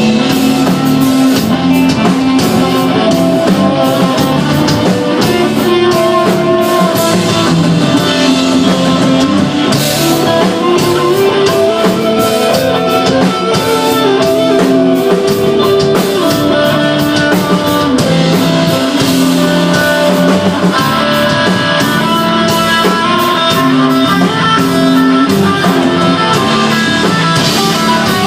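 Stoner rock band playing live: electric guitar melody over bass and a drum kit, loud and steady, with cymbal crashes now and then.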